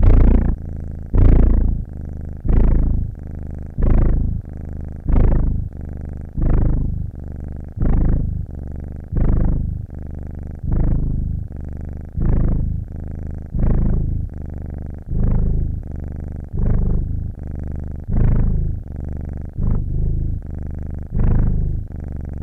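Domestic cat purring with its breathing, the purr swelling and fading with each breath in a steady rhythm of about one cycle every second and a half.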